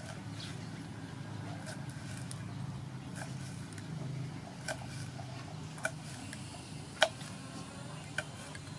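Kitchen knife slicing red chilies on a wooden chopping board: a sharp knock each time the blade meets the board, about one a second in the second half. A low steady rumble runs underneath.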